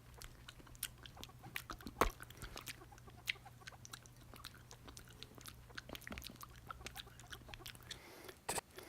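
Fingers being licked: faint wet clicks and smacks at irregular intervals, one sharper click about two seconds in, over a low steady hum that stops near the end.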